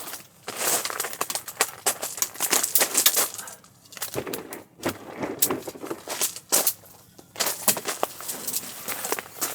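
Irregular clicks, knocks and rustling, some in quick runs, with brief pauses about 4 and 5 seconds in.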